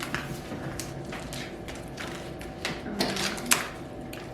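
Scattered light clicks and taps from paper craft pieces being handled and set down on a table, the sharpest tap about three and a half seconds in.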